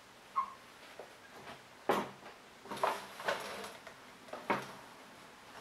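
Clicks and clunks from the bevel lock paddle lever of a Milwaukee 6955-20 sliding compound miter saw being moved between its lock, detent and free-bevel positions. There are about half a dozen irregular knocks, the loudest about two seconds in, with a short rattle about three seconds in.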